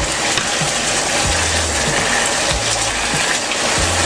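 Chicken and vegetable stir-fry sizzling in a nonstick pan over high heat as its last liquid cooks off, with a spoon scraping and clicking against the pan as it is stirred.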